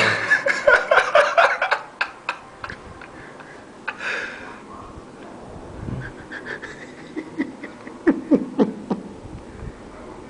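A man's non-speech vocal noises in bursts of rapid pulses, loudest in the first two seconds, with another cluster about eight seconds in.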